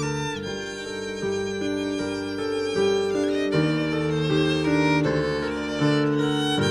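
Background music: a violin melody of held notes over lower sustained notes, changing about every second.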